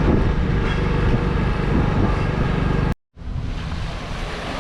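Rumbling wind and road noise from a moving motor scooter. About three seconds in it cuts off abruptly to a moment of silence, then a somewhat quieter stretch of the same kind of outdoor noise follows.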